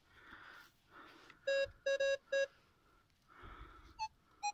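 Metal detector beeping as a handful of dug soil is held under its search coil: four quick beeps of the same tone, then two short, higher beeps near the end, with soft rustling of soil in the hand. The beeps mean there is a metal target in the clump of soil.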